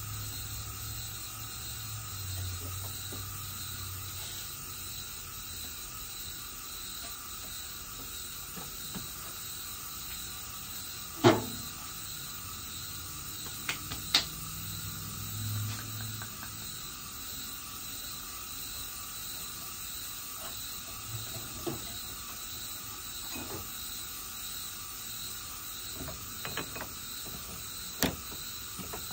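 Workshop room tone, a steady hiss with a faint high whine, broken by a few sharp clicks and knocks as tools are handled at a stopped metal lathe. The loudest knock comes about eleven seconds in, with a pair a few seconds later and another near the end.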